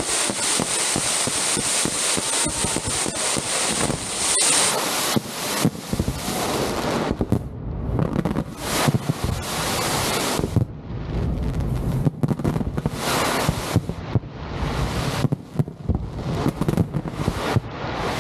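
Fireworks display going off in a dense run of bangs and crackling bursts, one after another, with wind rumbling on the microphone.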